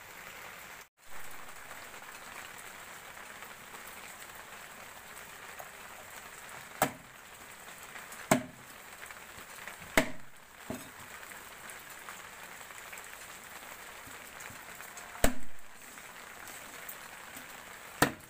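A cleaver chopping raw chicken on a wooden board, about six sharp, irregularly spaced chops, over a steady hiss of rain.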